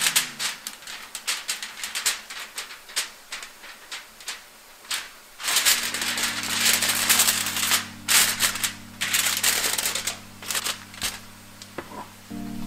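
Aluminium foil crinkling and crackling in irregular bursts as it is folded and crimped by hand around a whole fish, busiest in the second half.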